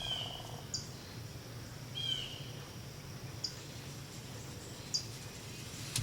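Small birds calling in the woods: two short, sharp chirps that drop in pitch, about two seconds apart, and a few brief high notes scattered through, over a steady low hum.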